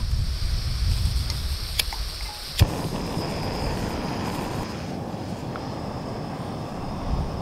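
Gas canister backpacking stove on a Primus canister: gas hissing from the opened valve, a lighter clicking, then the burner catching with a sharp pop about two and a half seconds in and burning with a steady rush of flame.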